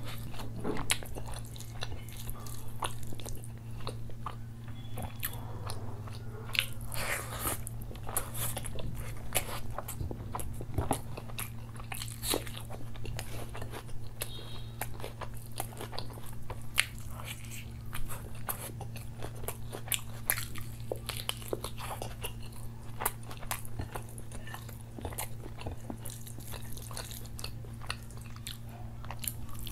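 Close-miked chewing of mouthfuls of butter chicken curry and rice eaten by hand: wet mouth sounds, bites and occasional crunches throughout, over a steady low hum.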